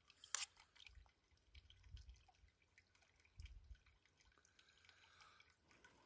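Near silence with faint handling of a stainless camp pot and spoon: one sharp click about a third of a second in, then a few soft low bumps and small ticks.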